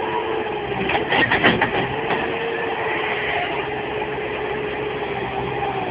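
Bobcat skid-steer loader's diesel engine running steadily under load while its bucket pushes against a tree. There is a quick cluster of sharp knocks about a second in.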